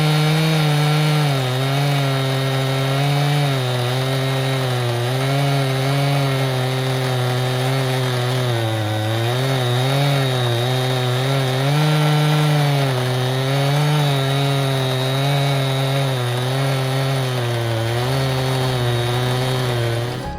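Stihl MS261c two-stroke chainsaw with a ripping chain running at high revs while ripping a lengthwise cut through a cherry log on a chainsaw mill. The engine note dips and recovers every second or two as the load on the chain changes.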